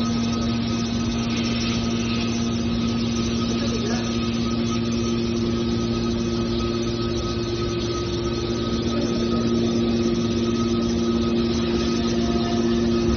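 Scrap metal baler's hydraulic power unit running, a steady machine hum with constant pitched tones over a broad noise.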